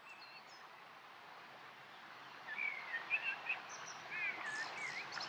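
Wild birds singing: short whistled, warbling phrases that grow louder from about halfway, over a steady outdoor background hiss.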